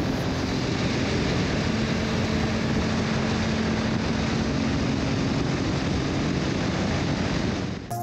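Motorcycle riding at steady motorway speed: an even rush of wind and road noise with a faint steady engine hum underneath. It cuts off abruptly near the end.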